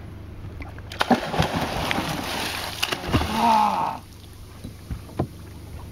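Heavy splashing and churning of water for about three seconds as a shark thrashes at the surface, with a short shout near the end of it. It then drops back to light water and wind noise.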